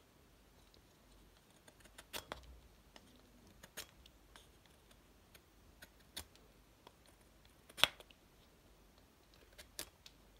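A handful of sharp, irregularly spaced clicks and taps as a handmade steel knife blade and a wooden handle piece are handled together. The loudest click comes about three-quarters of the way through.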